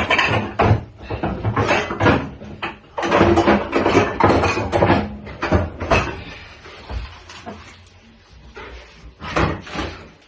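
Kitchen clean-up clatter: a chopping board, bowls and utensils being knocked, gathered and set down in quick succession. It is busiest in the first half, thins out after that, and has one more sharp knock near the end.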